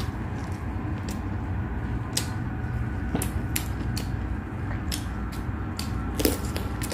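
Close-miked eating sounds: chewing and wet mouth clicks as food is eaten by hand, then a crunchy bite into a whole raw cucumber in the second half. A steady low hum runs underneath.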